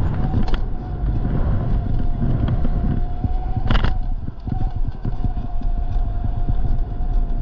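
E-bike being ridden: the electric motor's steady whine over heavy wind and road rumble on the microphone, with one sharp rattle just before four seconds in.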